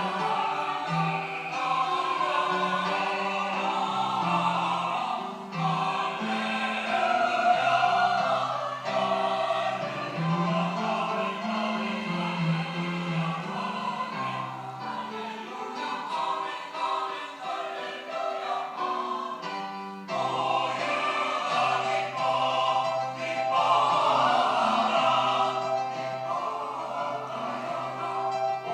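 Church choir singing a sacred anthem in harmony, several voice parts moving together in sustained phrases, with a brief break between phrases about twenty seconds in.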